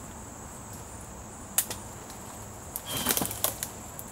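Steady high-pitched drone of insects such as crickets over quiet outdoor background, broken by one sharp click about a second and a half in and a brief burst of crackling clicks around three seconds, the loudest moment.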